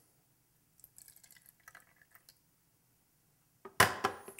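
Fresh lime juice trickling and dripping faintly as it is poured into a jigger, then a single sharp knock near the end.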